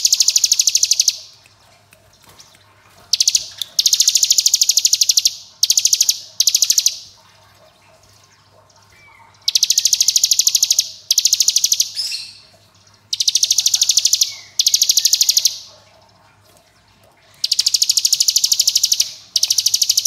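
Ciblek gunung (a prinia) singing its 'ngebren' song: bouts of a very fast, machine-gun-like trill of high notes, each about a second long, coming in quick succession with short gaps and a couple of longer pauses.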